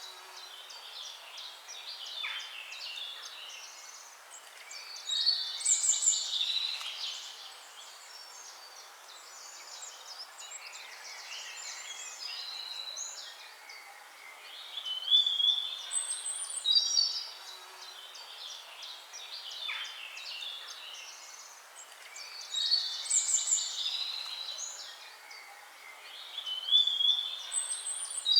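Several songbirds singing and chirping over a faint steady hiss, with louder bouts of quick high chirps and trills recurring every several seconds.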